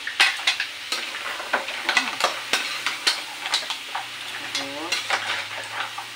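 Spatula stirring shrimp, crab and corn in a large stainless steel pan, knocking and scraping against the metal many times over a steady sizzle of frying.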